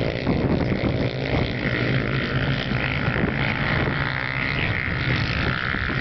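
Engines of studded racing quads (ATVs) running hard at high revs as they pass on the ice, a steady engine drone.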